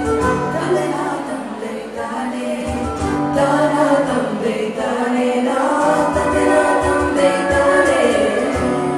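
Live band performance of a Sinhala song mashup: female and male voices singing together into microphones, backed by a band with violin and drums.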